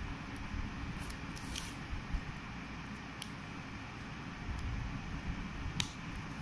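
Small plastic toy pieces clicking as connector sticks are fitted onto plastic rings and handled on a mat: a few scattered sharp clicks, the loudest about three seconds in and near the end, over a low steady background rumble.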